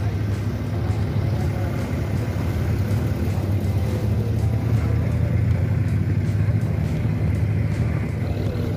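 A wooden abra's diesel engine running steadily as the boat crosses the creek, a constant low drone.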